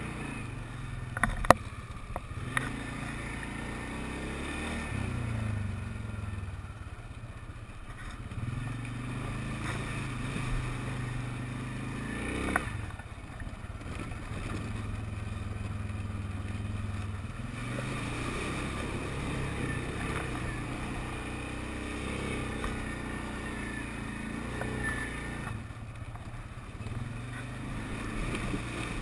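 TGB Blade 425 quad's engine running while being ridden, its revs rising and falling. A few sharp knocks come near the start and one about halfway through.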